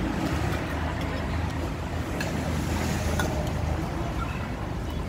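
A steady low engine rumble, like a motor vehicle running nearby, with a few faint clicks over it.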